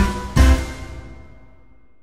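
Background music: a final chord struck about half a second in rings and fades away.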